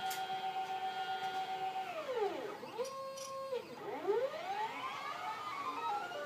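Stepper motors of a home-built Arduino (GRBL) CNC gantry whining as they move the welding torch through a dry run of circles. The pitch holds steady, then glides down and back up in smooth arcs as the axes slow and speed up around each curve.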